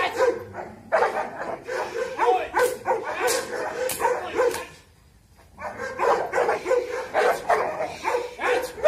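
Dog barking over and over in a quick run, two or three barks a second, with a pause of about a second partway through: a dog being worked up by a helper during guard-dog training.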